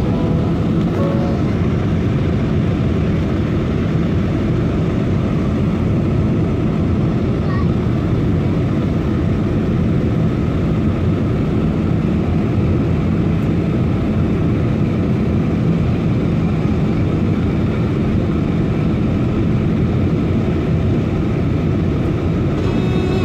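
Steady cabin noise of a jet airliner in flight: a low, even rumble of engines and airflow, heard from inside the cabin near the wing.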